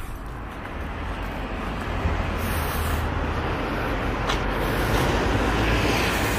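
Car driving: steady road and engine rumble with tyre noise, building up over the first couple of seconds and then holding steady.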